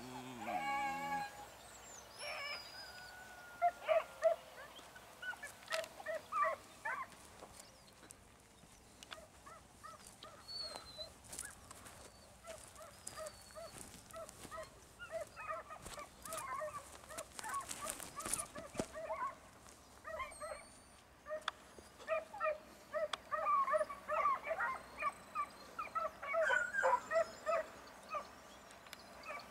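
Fox-hunting hounds yelping in quick runs of short, repeated cries, giving tongue as they run a trail through the brush.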